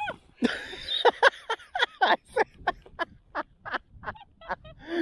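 Waterfowl calling: a dense run of short, loud pitched calls, many overlapping, starting about half a second in.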